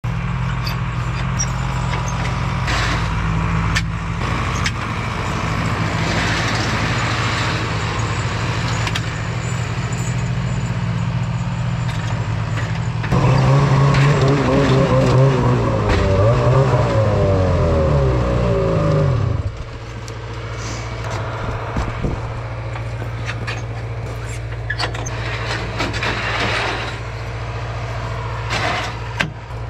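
Engines idle steadily, then the Ski-Doo 850 Freeride's two-stroke engine revs up and down for about six seconds as the sled climbs the ramp onto a pickup's deck, and cuts off suddenly. A lower steady engine hum carries on underneath, with a few knocks and clanks from the loading ramp near the end.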